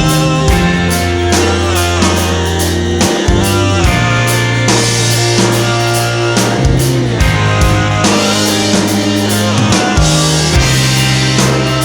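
Background rock music with drums, guitar and a steady beat.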